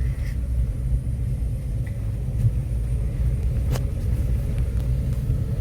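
Steady low rumble of a car driving, with a couple of faint clicks.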